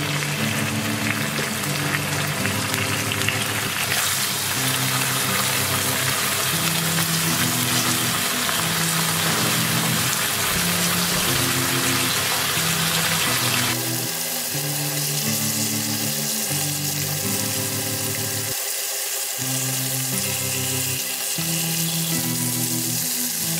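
Pork loin slices sizzling steadily in hot oil in a nonstick frying pan.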